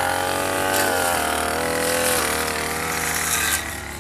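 A small petrol engine running, its pitch rising and falling as it is revved. It drops away about three and a half seconds in.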